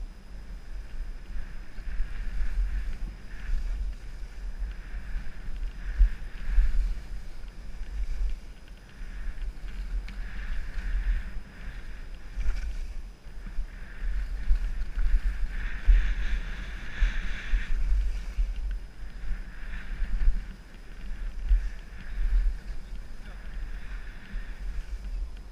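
Wind buffeting a GoPro action camera's microphone as a skier runs downhill, a constant gusty rumble, with skis hissing and scraping over packed snow; the scraping swells about two-thirds of the way through.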